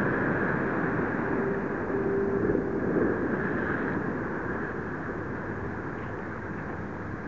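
Steady rushing of wind and choppy water, with a faint steady tone on and off during the first few seconds. It eases a little toward the end.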